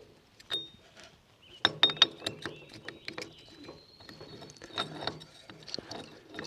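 Scattered metal clicks and knocks as a PTO Link quick coupler is worked onto a tractor's splined PTO shaft, which won't slide on. The clicks come thicker from about a second and a half in.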